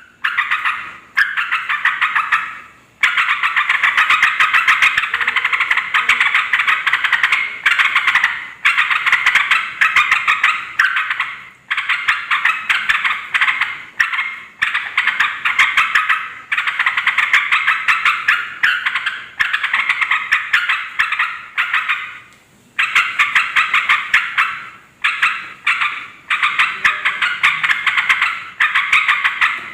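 Yellow-vented bulbuls (trucukan) chattering loudly in long runs of rapid, bubbly notes, broken by short pauses every few seconds.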